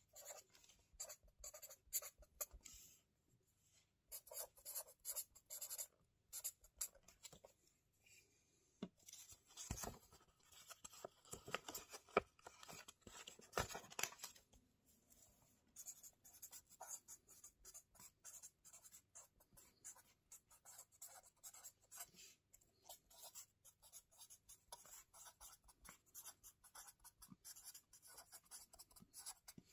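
Pen writing on paper in a spiral-bound notebook, close up: soft, quick scratchy strokes one after another. A denser, louder rustling stretch comes about ten to fourteen seconds in, as the notebook page is turned and flattened.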